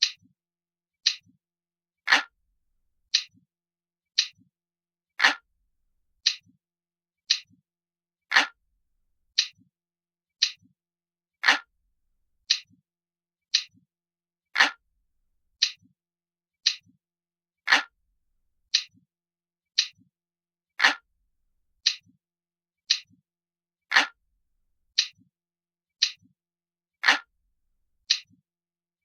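Looping clock-ticking sound effect, like a traditional analog clock: crisp ticks about once a second, every third or so fuller and louder than the rest.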